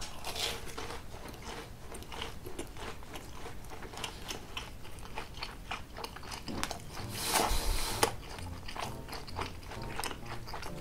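Close-miked chewing of a fried cheese ball with a seasoned crust: moist mouth clicks and crackles throughout, with a louder stretch of crunching about seven seconds in.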